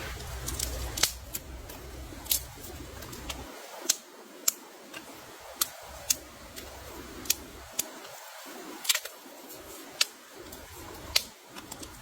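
A series of short, sharp clicks or taps, about one a second and unevenly spaced, over a low background rumble.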